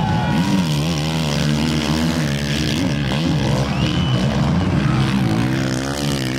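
450cc four-stroke motocross bike engines racing past, revving hard, their pitch repeatedly rising and falling with the throttle and gear changes.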